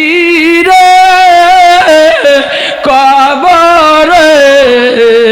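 A man's voice chanting in the sung melodic style of a Bengali waz sermon. He holds long, drawn-out notes with a wavering vibrato and slides between pitches, with no clear words.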